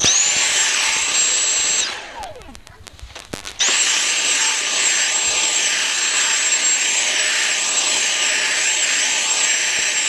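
Dyson V7 Motorhead cordless stick vacuum running on carpet with a high whine. It spins up at the start, winds down after about two seconds as it is switched off, starts again abruptly about three and a half seconds in, and then runs steadily. A few light knocks fall in the pause.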